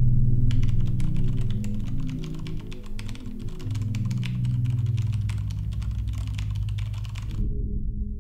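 Rapid typing on a computer keyboard, a dense run of key clicks that starts about half a second in and stops suddenly near the end, over low sustained background music.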